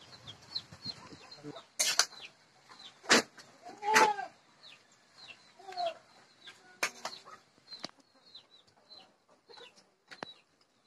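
Chickens clucking while a small bird keeps up short, high, falling chirps. A few sharp, loud knocks of a metal ladle against a metal cooking pan cut through as the curry is served out.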